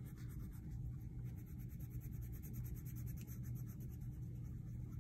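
A red wax crayon rubbing back and forth on paper, colouring in an area with a steady run of quick, short strokes.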